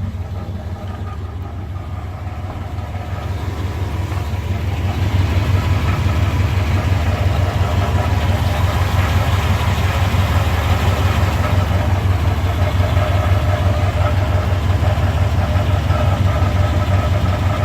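K1500 pickup engine idling with a steady, rhythmic low pulse, growing louder about five seconds in. It carries the idle-only noise the owner places near the bell housing or back of the transmission, one that does not change with gear selection.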